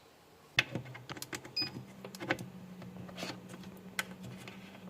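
Irregular plastic clicks and taps from handling and setting up a mini washing machine, beginning about half a second in, with a short high beep and then a steady low hum starting about a second and a half in.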